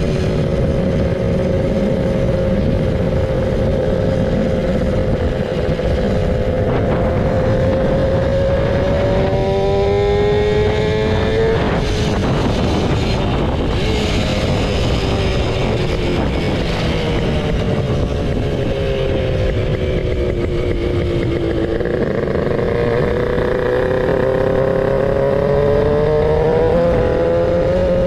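Suzuki Xipo motorcycle's home-built two-cylinder two-stroke engine under way, its note climbing as it accelerates, dropping sharply at a gear change about halfway through, falling away as it eases off and climbing again near the end, over steady wind and road noise.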